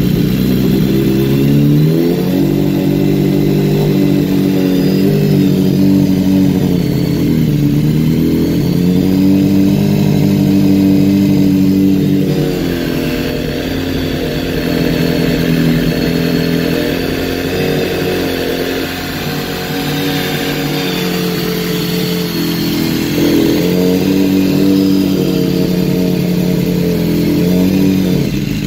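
BMW S1000RR inline-four race engine running cold at a raised idle, its engine speed rising and falling several times as the throttle is blipped. This is the warm-up, done to push oil pressure up to the cylinder head.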